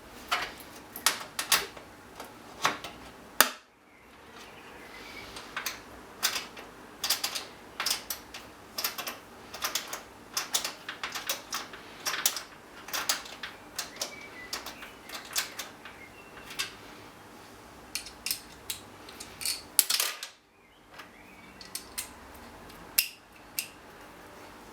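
An irregular run of small, sharp metallic clicks and taps from metal motherboard stand-offs being handled and screwed into a PC case.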